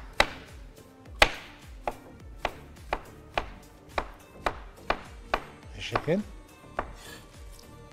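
Kitchen knife chopping zucchini on a cutting board, steady knocks about twice a second that stop shortly before the end.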